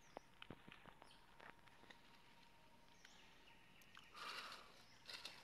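Near silence: faint forest ambience with a few soft clicks and a brief rustle about four seconds in.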